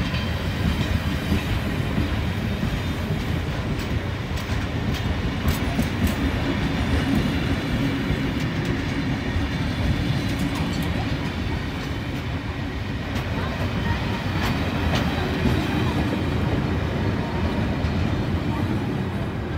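Passenger train carriages rolling past at close range: a steady rumble of steel wheels on rail with scattered clicks over the rail joints, dropping away near the end as the last carriage passes.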